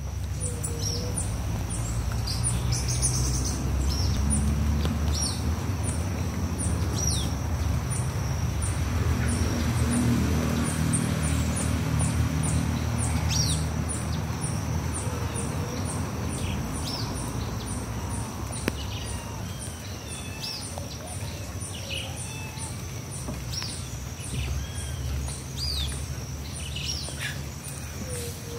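Small birds chirping in short, falling calls over a steady high buzz and regular high ticking. A low rumble underneath is strongest in the first half.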